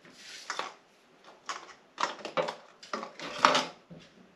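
Flat plastic stock being pulled out and handled: sheets scraping and knocking against each other and the storage in an irregular series of clatters, the loudest about three and a half seconds in.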